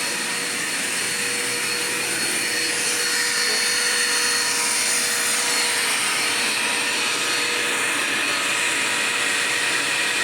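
Dirt Devil Quick Power vacuum cleaner running steadily: a constant motor whine over the rush of air.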